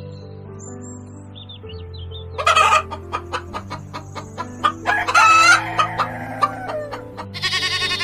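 Chickens clucking and calling, with a run of short clucks and a longer crowing call in the middle, over background music with steady held notes.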